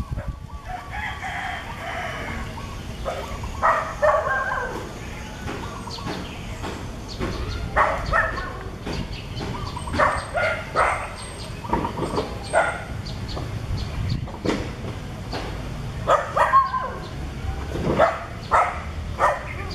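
A series of short animal calls over a steady outdoor background, coming irregularly and often in quick clusters of two or three.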